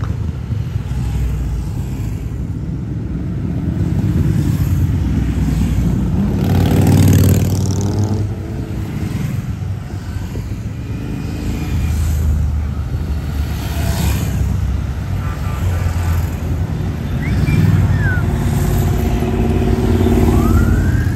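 A procession of motorcycles riding past one after another at low speed, their engines running loud and swelling as each bike goes by, loudest about seven seconds in.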